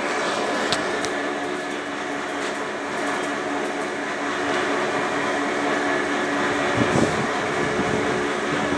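Laundry soap mixer machine running: a steady mechanical hum with a few light clicks, and a brief low rumble about seven seconds in.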